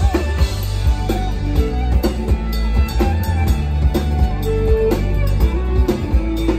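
Live folk-rock band playing an instrumental break: fiddle over strummed acoustic guitar and a steady drum beat.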